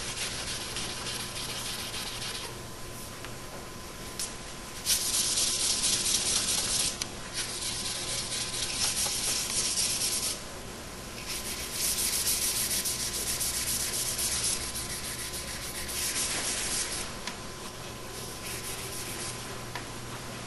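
Hand wet-sanding with 500-grit wet/dry sandpaper, flattening a urethane clear coat on a woodgrain glove box door: a gritty scratching hiss in strokes that come in stretches of a few seconds. It pauses briefly about halfway through.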